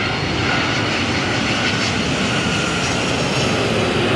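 Airliner engines running loud and steady, a dense even noise with a faint whine.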